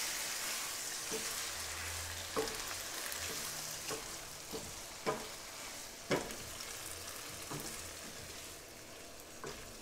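Chicken, vegetables and diced tomatoes sizzling in a large pan while a plastic spoon stirs and tosses them, knocking against the pan every second or so. The sizzle slowly dies down.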